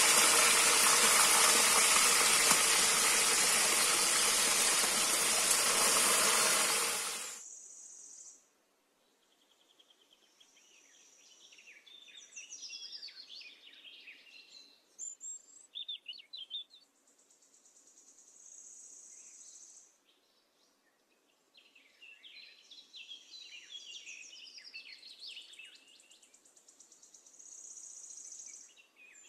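Pieces of para fish frying in hot oil in a wok, a loud, even sizzle that cuts off about seven seconds in. After that, faint bird chirps and a high, steady insect drone come and go.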